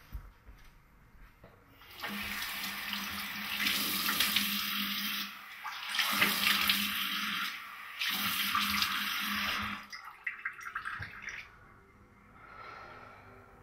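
Water running from a tap into a bathroom basin, starting about two seconds in, briefly dropping away twice, and stopping about ten seconds in, with a low steady hum while it flows.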